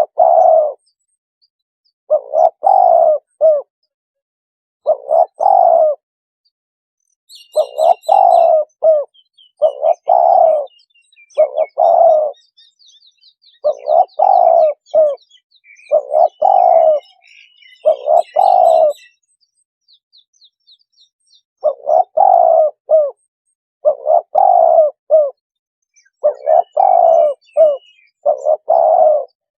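Spotted dove cooing in loud, repeated phrases, about one every two seconds, with a short break a little past the middle. Faint high chirps of small birds are heard between the phrases.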